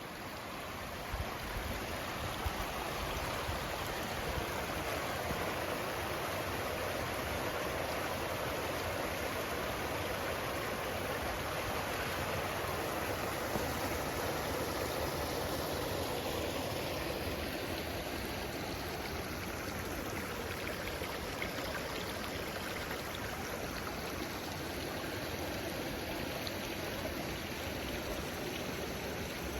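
Steady rushing of falling and tumbling water from a mountain creek or waterfall. It swells over the first few seconds, then holds even.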